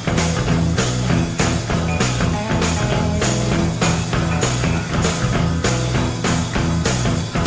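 Rock music with guitar, bass and a steady drum beat.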